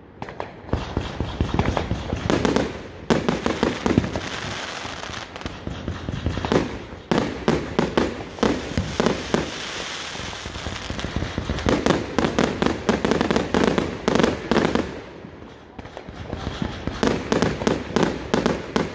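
Aerial fireworks going off in quick volleys: rapid strings of sharp bangs in about five bunches, with crackling in between.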